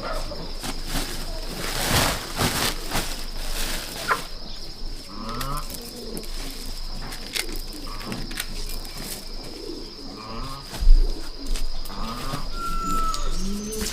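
Doves cooing in repeated short phrases, over a steady high tone, with a few sharp knocks and one loud low thump about eleven seconds in.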